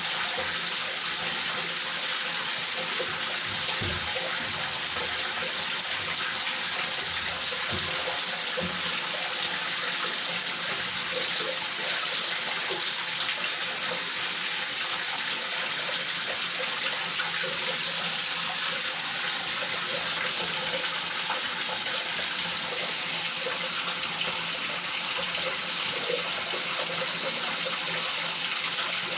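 Rain falling steadily, an even hiss with no change in level.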